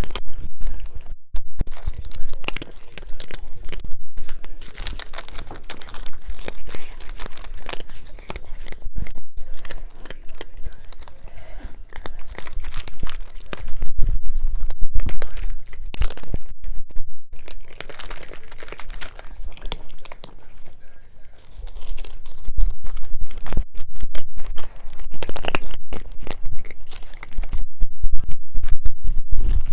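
Cats eating, miked close: an irregular run of crunching and chewing, louder in the middle and over the last third.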